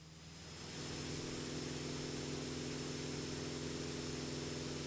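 Faint steady drone of a Cessna 172P's four-cylinder engine and propeller in flight, with an even hiss over it, fading up over the first second.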